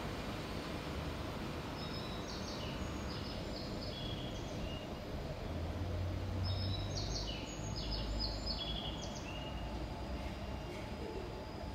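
Departing electric commuter train heard receding. A steady low rumble runs under the station's background noise, with two runs of high stepped whining tones, one about two seconds in and another from about six to nine seconds in.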